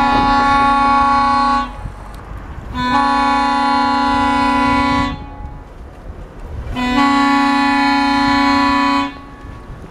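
Horn of a hi-rail pickup truck running on the rails, sounding three long blasts, each held steady, with short pauses between them.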